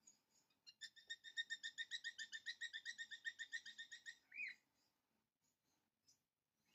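A bird singing a rapid trill of about nine repeated notes a second for some three seconds, ending in a single down-slurred note, with a few faint chirps around it.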